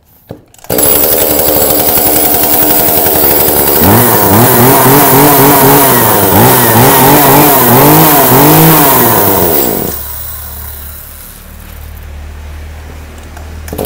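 A Hitachi 33cc two-stroke top-handle chainsaw starts about a second in and catches at once. From about 4 to 10 seconds it is revved in repeated quick blips, each rising and falling in pitch, then it settles to a quieter idle. Near the end it is revved up again.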